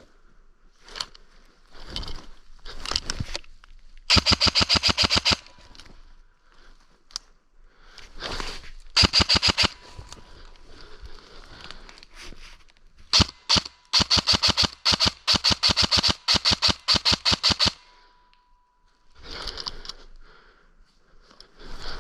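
Lancer Tactical airsoft electric gun firing full-auto bursts, about ten shots a second: a short burst about four seconds in, another around nine seconds, and a long string of bursts from about thirteen to eighteen seconds. A few scattered single knocks come earlier.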